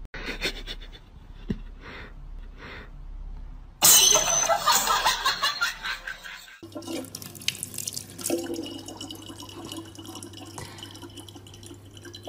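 Soft, evenly spaced puffs, then a sudden loud, harsh outburst lasting about three seconds, then tap water running in a thin steady stream into a plastic bottle, with a low hum beneath.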